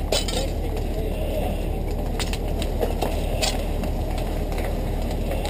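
A room fire burning behind a window of a house, with scattered sharp cracks and pops over a steady low rumble.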